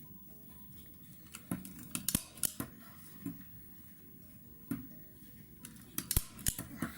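Upholstery staple gun firing staples through fabric into a wooden chair frame: a series of sharp clacks at uneven intervals, with a quick run of shots about two seconds in and another near the end.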